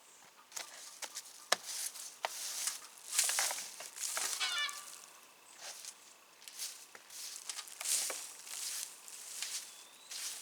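A bird gives a quick run of calls about four and a half seconds in, among scattered sharp knocks and rustling.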